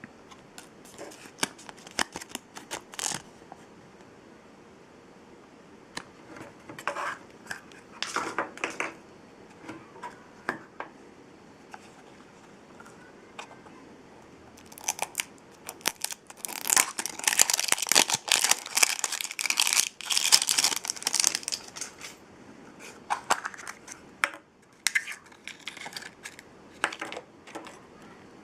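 Blind-bag toy packaging being handled, torn open and crinkled by hand: scattered crackles and clicks, with a long dense stretch of crinkling in the middle.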